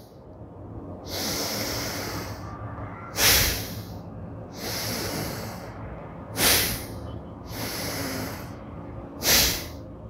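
A man's deliberate breathing in a pranayama arm exercise: three long inhales of about a second and a half each, each followed by a short, sharp, louder exhale.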